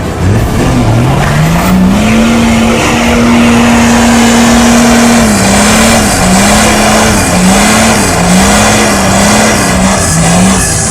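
Off-road 4x4's engine revs up over about two seconds and holds high. It then rises and falls in quick throttle pulses about once a second.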